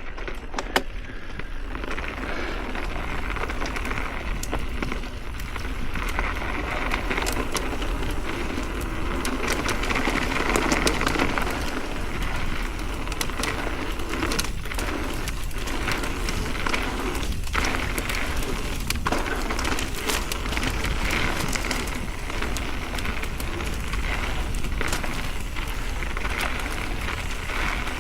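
Ibis Oso electric mountain bike riding over a rough dirt and gravel trail: a steady crunching hiss of tyres with many sharp clicks and knocks.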